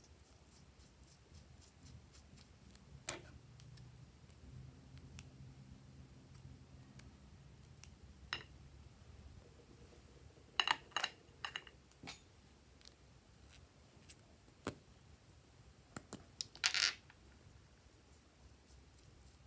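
Small hard-plastic clicks and taps from handling lip balm tubes, their caps being pulled off and pushed back on. The clicks are scattered, with a quick cluster of them about halfway through and a longer, brighter click-and-scrape near the end.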